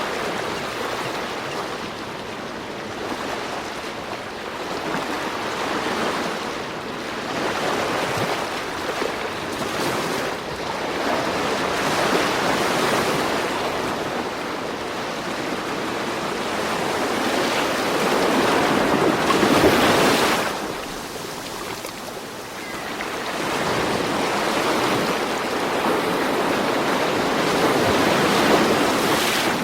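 Ocean waves washing in, a steady rush that swells and eases every few seconds; the loudest surge comes about two-thirds of the way through.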